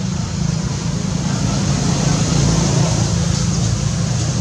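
Steady outdoor background noise with a heavy low rumble, rising slightly in the middle.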